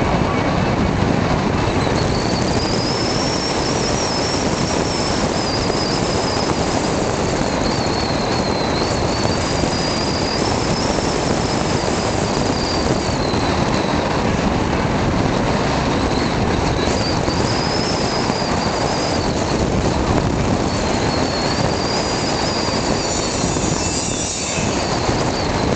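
Steady road and wind noise from a car driving slowly, with a thin high whine that wavers up and down in pitch for most of the time.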